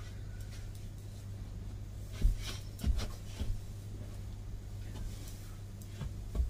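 A few soft thumps and rustles as long hair is flipped and handled, the loudest two about two and three seconds in, over a steady low hum.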